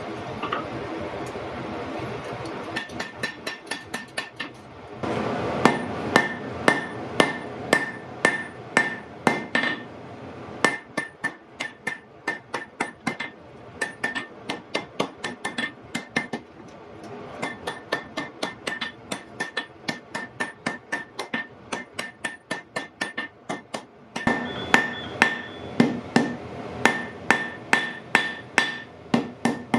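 Blacksmith's hand hammer striking hot iron on an anvil in runs of quick blows, about three a second, each blow leaving a short metallic ring from the anvil, with brief pauses between runs. A steady rushing noise comes before the first blows.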